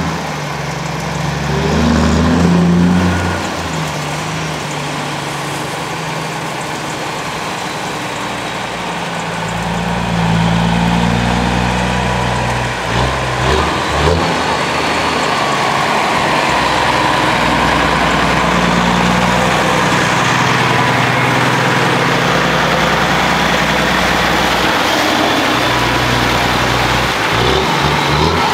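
Freightliner semi-truck's diesel engine running through straight pipes as it pulls a loaded lowbed trailer slowly past, getting louder about ten seconds in as the truck draws near.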